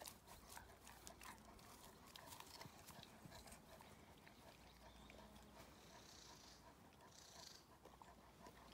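German Shepherd dog chewing an apple: faint, irregular crunching and wet chomping clicks.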